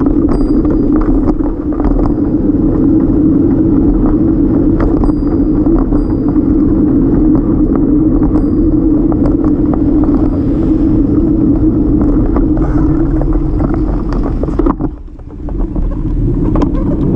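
Steady rumble of wind and road noise on a bike-mounted camera while a folding bike is ridden along the road, with frequent small clicks and rattles from bumps. The rumble drops briefly about fifteen seconds in, then returns.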